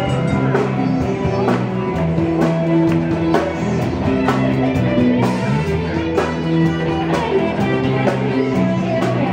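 Live band playing amplified rock-style music, electric guitars over a drum kit keeping a steady beat.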